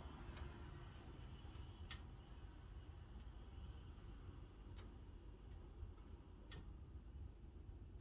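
Faint, sparse crackles and pops of a wood fire burning in a fireplace, a few sharp snaps at irregular intervals over a low steady rumble.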